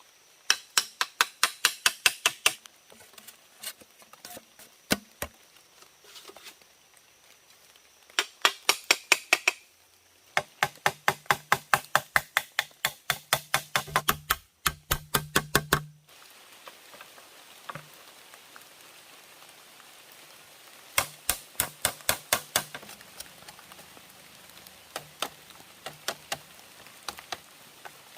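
Quick runs of sharp chopping strikes, about seven a second. Each run lasts a few seconds, with short pauses between.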